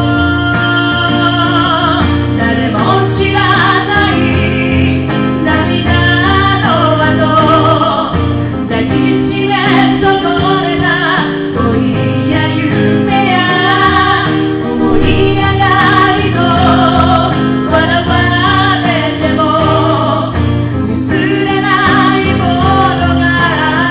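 A woman singing a song live, with guitar accompaniment; her held notes carry vibrato.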